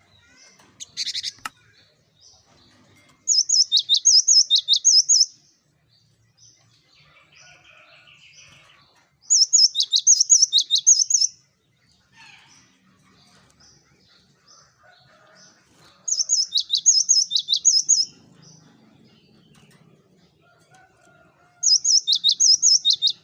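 Cinereous tit (gelatik batu) singing: four loud phrases, each about two seconds of rapid, repeated high notes that sweep down, with faint chirps between them.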